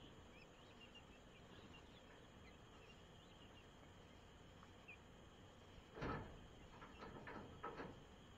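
Faint insects chirping in the night. About six seconds in comes a sudden short outburst from the chickens, and a few more short calls follow near the end.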